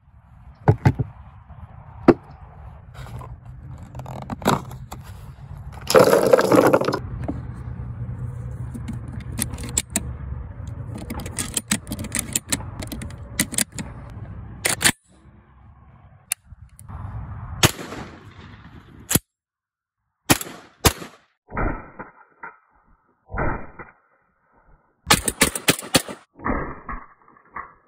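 Clicks, knocks and metallic clacks from handling a Browning Auto-5 semi-automatic shotgun and its shotgun shells as they are loaded, with a loud clatter about six seconds in.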